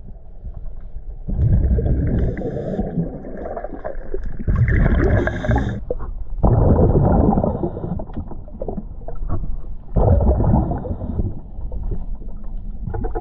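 Scuba diver breathing through a regulator underwater, with about four loud surges of gurgling exhaust bubbles and quieter stretches between.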